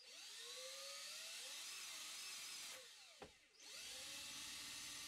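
DeWalt cordless drill running as it bores a hole through a plastic transmitter case, its faint motor whine rising and falling in pitch as the trigger is eased. It stops briefly about three seconds in, then runs on more steadily.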